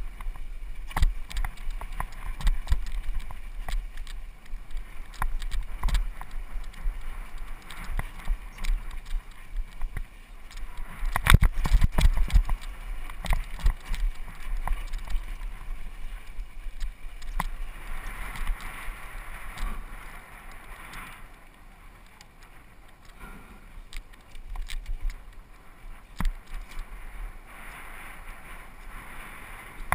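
Downhill mountain bike ridden fast over a rough, dry dirt trail: tyres running over dirt and rocks and the bike rattling, with many sharp knocks over a steady low rumble of wind on the microphone. The knocking is heaviest about eleven to twelve seconds in and eases for a few seconds a little past the midpoint.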